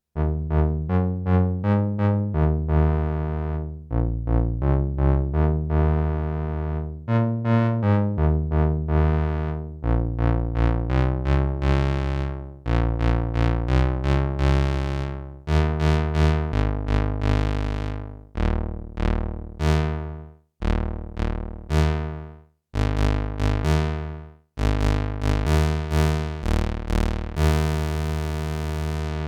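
Behringer Odyssey analog synthesizer playing a bass line of short, bright notes that each die away quickly, changing pitch note to note. Near the end it holds one long, brighter note.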